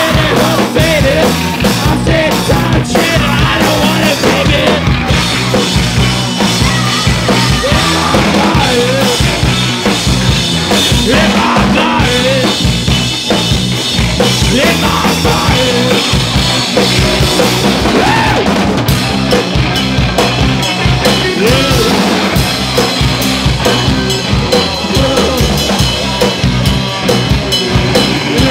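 Punk rock band playing live and loud: a drum kit driving a fast beat under electric bass and distorted guitar.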